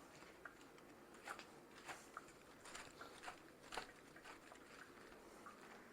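Near silence with faint, scattered light clicks and rustles as vegetables are handled.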